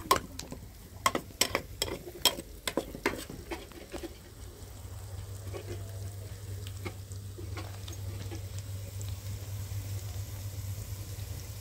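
Long metal spoon stirring diced food frying in oil in a wide metal pan, with a quick string of sharp clinks and scrapes against the pan in the first few seconds, then a steady sizzle. A low steady hum comes in underneath about halfway through.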